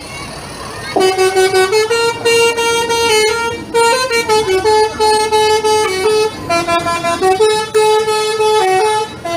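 Bus 'telolet' horn, a multi-tone musical horn, playing a melody of stepped notes that starts about a second in and keeps going.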